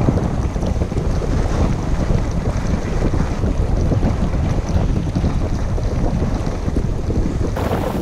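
Wind buffeting the microphone of a camera carried by a skier running downhill, a steady low rushing. Near the end a brighter hiss comes in.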